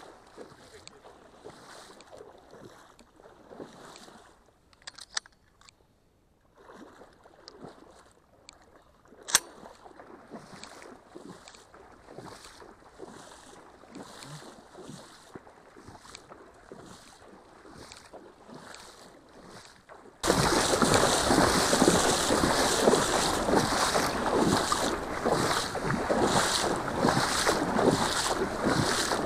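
Quiet open-air ambience with a few faint knocks and one sharp click about nine seconds in. About twenty seconds in it switches abruptly to loud, steady wind noise buffeting the microphone.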